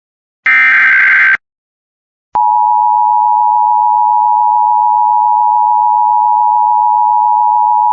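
Emergency Alert System tones. First a SAME header data burst, a loud buzzing warble of rapid digital tones lasting about a second. Then, after a short silence and a click, the EAS attention signal starts, a loud steady two-tone beep that holds unchanged.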